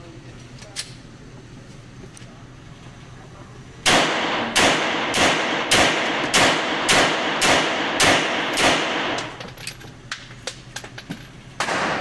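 A Glock pistol fires about nine shots at a steady pace, just under two a second, each shot echoing around an indoor range. Light clicks of the pistol being handled follow, and there is one more sharp bang right at the end.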